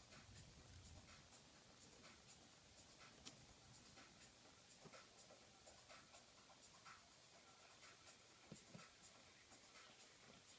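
Faint scratching with light ticks, scattered and irregular: a thin stick prodding through web and coco-fibre substrate in a plastic tub.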